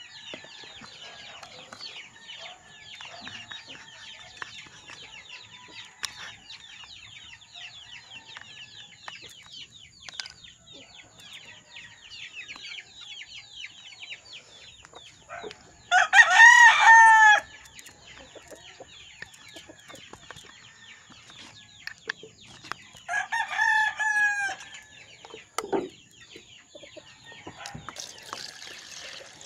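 Month-old chicks peeping nonstop in quick, falling cheeps. A rooster crows loudly about halfway through, then again more quietly a few seconds later.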